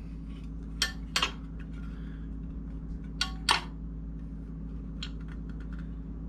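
Sharp clicks and light metal knocks from a clutch and brake pedal assembly as the pedals are swung on their pivot pin and bushings: a pair of clicks about a second in, two more about three and a half seconds in, then a few faint ticks.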